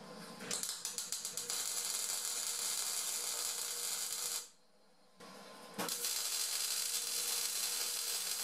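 Electric arc welding on the steel frame rail and mount plate: a steady crackling sizzle that strikes up about half a second in, breaks off for a second or so in the middle, then starts again for a second bead.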